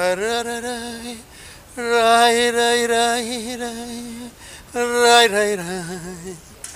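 A man singing unaccompanied into a handheld microphone: three long held notes separated by short breaths, the last one wavering and sinking in pitch near the end.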